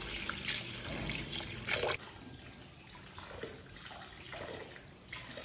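Tap water running and splashing onto lettuce leaves in a stainless-steel bowl in the sink, as hands rub the leaves under the stream. It is louder for about the first two seconds, then softer.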